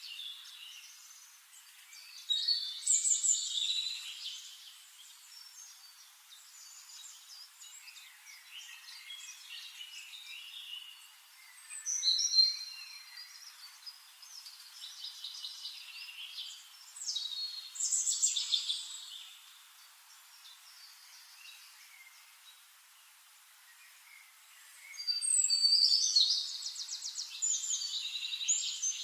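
Songbirds singing in separate bursts of chirping phrases, several seconds apart, with a fast, even trill near the end. Between the songs there is only a faint hiss.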